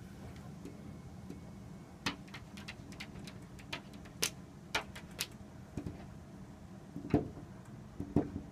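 Boxer puppy's teeth and claws clicking and tapping against a glass door in an irregular run of sharp clicks, then two duller knocks against the glass near the end.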